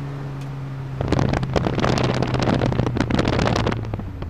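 Škoda Fabia 1.4 rally car's engine heard from inside the cabin, held at steady revs. From about a second in, a loud, dense crackling rattle of many small hits drowns it for about three seconds, then stops.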